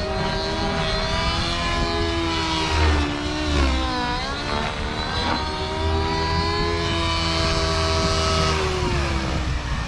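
OS 55 AG nitro glow engine with a tuned pipe, and the rotor of an RC helicopter, running in flight. The pitch rises and dips as the collective goes between full positive and mid stick, with a dip about four seconds in and a falling pitch near the end. The mid-range needle has been leaned three clicks and the engine still runs a little rich at mid stick.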